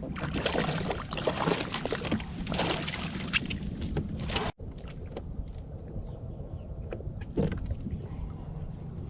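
Water splashing and sloshing against a kayak, with small knocks. The sound is busy for the first half, cuts out for an instant, and goes on quieter with only the odd splash.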